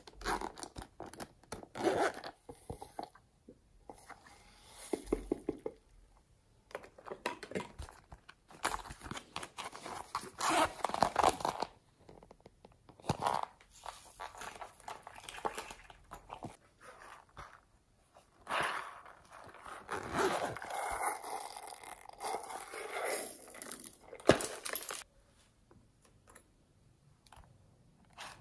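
Zippers on silicone pencil cases and pouches being worked, and their fillings shaken and tipped out into slime: crackly rustling and scraping that comes in bursts with short pauses between.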